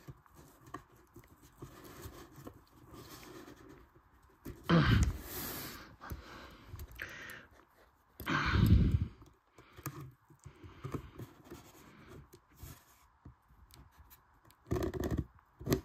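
A box being cut open by hand with scissors: faint cutting and cardboard handling noises, with two louder rustling scrapes of about a second each, around five and eight seconds in.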